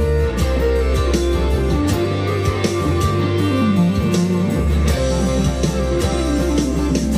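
Monoprice Indio Cali Classic Strat-copy electric guitar played through an amplifier: single-note lead runs moving up and down, with low sustained notes underneath that drop out for a couple of seconds in the middle.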